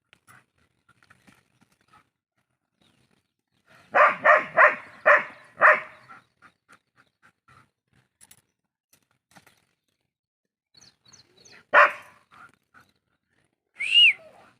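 A pet dog barking: a quick run of five barks about four seconds in, then a single bark near the end, followed by a short high-pitched call that rises and falls.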